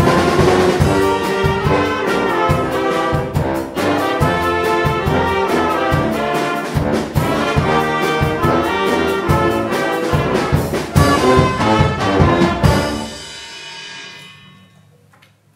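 Youth wind band of saxophones, trumpets, trombones and tuba playing a tune, with a drum kit keeping a steady beat. About two seconds before the end the music stops and dies away.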